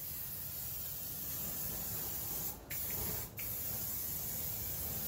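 Aerosol cooking spray hissing onto a hot grill grate over lit charcoal, where the oil flares up. One long spray with two brief breaks in the middle.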